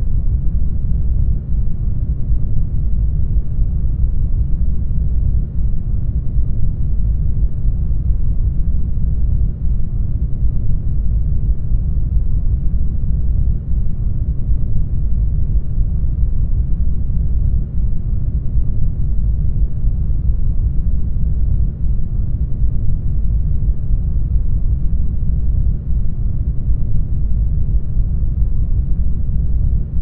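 A steady, deep, muffled rumble of isolation-tank ambience, a sensory-deprivation sound bed with almost all its weight in the low bass and nothing bright on top. The level dips slightly about every four seconds.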